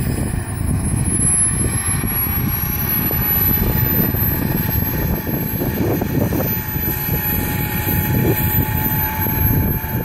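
Wren 80i model gas turbine in an RC jet boat running at low throttle, held to a quarter of maximum. It gives a thin high whine that rises slightly in pitch over a steady rushing noise.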